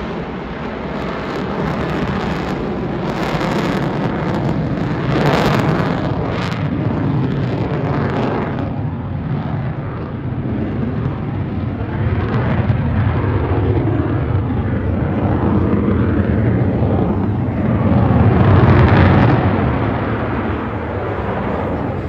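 Airplane flying past, a loud continuous engine noise that rises and falls, peaking about three-quarters of the way through.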